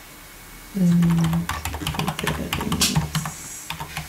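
Typing on a computer keyboard: a quick, uneven run of key clicks that starts about a second in. Just before the clicks begin there is a short, steady hum.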